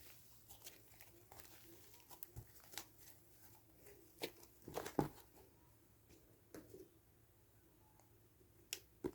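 Faint, scattered small clicks, taps and rustles of handling, with the sharpest tap about five seconds in.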